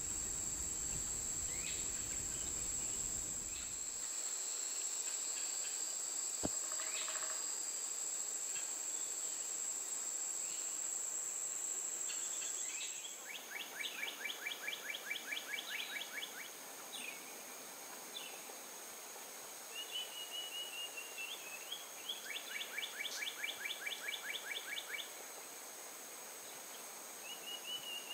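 Swamp woodland ambience: a steady high-pitched insect drone for the first half. About halfway through it gives way to a songbird calling in two rapid trills and a few short chirps, over a fainter insect drone.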